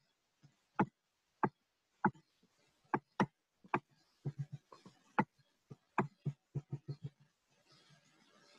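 Irregular sharp clicks and light knocks from the computer pointing device used to write on screen. They come singly at first, crowd together a few times a second in the middle, and stop about seven seconds in.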